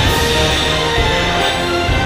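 Instrumental background music with sustained notes.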